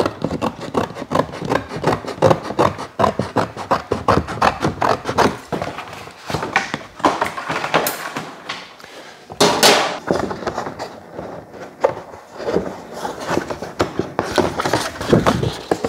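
Stiff pressed paper being flexed, folded and rubbed by hand, crackling and rustling in quick irregular clicks. A louder swish comes about nine and a half seconds in.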